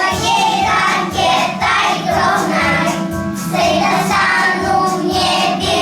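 A group of children singing together over a recorded backing track with a steady beat.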